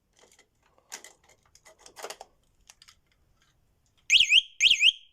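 Light clicks and handling noises, then the E-Odin 2.0 electric scooter's alarm beeper sounds two loud warbling chirps, each about half a second long, close together near the end. This is the annoying sound the scooter makes after the key is removed.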